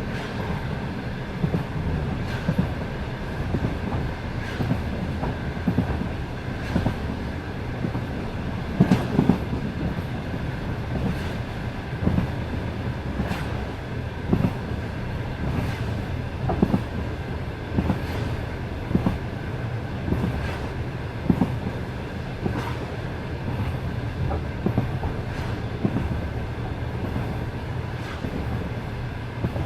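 Passenger train wheels knocking over rail joints in repeated clusters, clickety-clack, over a steady rolling rumble of the moving train.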